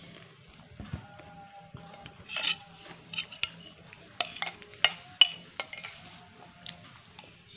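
A metal spoon scraping and clinking against a glass plate: a run of sharp clinks from about two seconds in, some ringing briefly.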